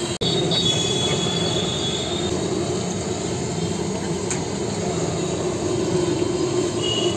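Batter fritters deep-frying in a wide iron kadai of hot oil: a steady, dense sizzling that goes on without a break.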